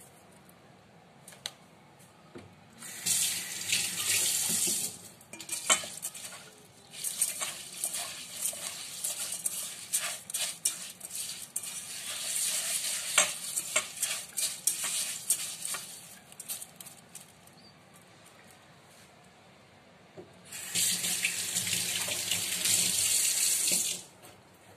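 Rice being washed in a metal pot. Water pours into the pot in two steady runs, about three seconds in and again near the end. Between them comes a longer spell of choppy splashing as hands swish and rub the grains in the water.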